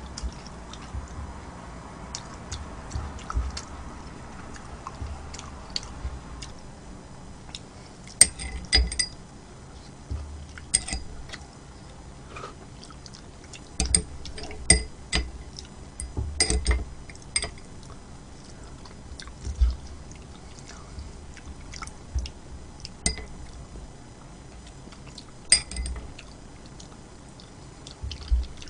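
Close-miked eating sounds: soft chewing and mouth noises, broken by sharp clicks of utensils against a dish, several of which ring briefly.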